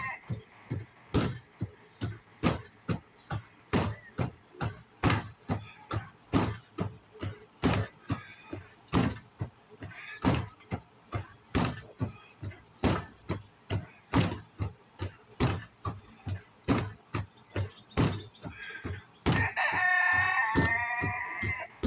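Quick, uneven smacks of gloved punches landing on a punching ball on a stand, about two a second. A rooster crows once near the end.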